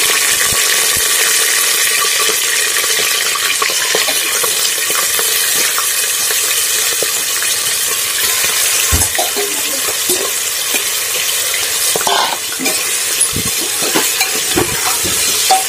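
Raw mutton frying in very hot, smoking oil in an aluminium pressure cooker: a loud, steady sizzle as the meat goes in and is stirred, with a metal spatula knocking against the pot a few times in the second half.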